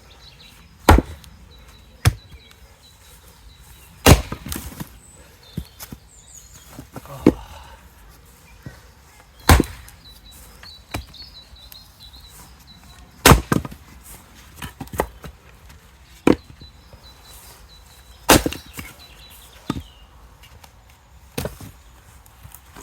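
Axe splitting firewood: about a dozen sharp blows into the wood, irregularly spaced a second or a few seconds apart.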